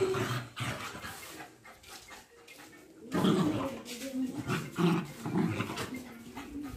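Two street dogs play-fighting, growling and snarling in a run of short low growls from about three seconds in.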